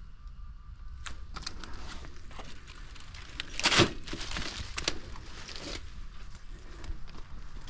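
Footsteps crunching over debris and rubble, with scattered cracks and crinkles and one louder crunch about three and a half seconds in.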